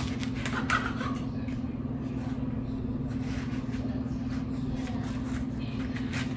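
Steady low mechanical hum, with a few light knocks and clicks near the start and again near the end.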